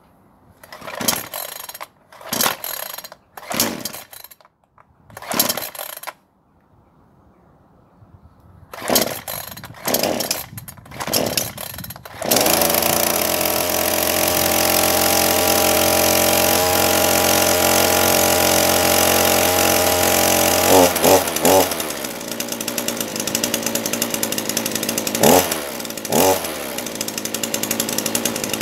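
Titan TTL759CHN two-stroke petrol chainsaw being pull-started: the recoil starter is pulled several times in two runs, and the engine catches about twelve seconds in. It then runs at a steady high speed and drops to a lower, rougher idle about ten seconds later, with a few short blips of throttle.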